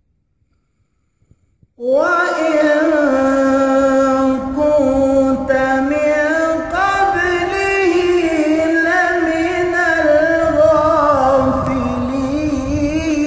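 A man's voice chanting Quranic recitation in one long, drawn-out melodic phrase, the pitch wavering and ornamented as the syllables are held. It begins about two seconds in, after a brief silence.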